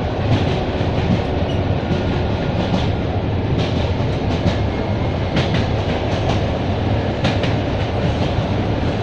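Wheels of an ED9M electric multiple unit clacking over rail joints over a steady running rumble, heard from inside the carriage. The clacks come in quick groups every second or so.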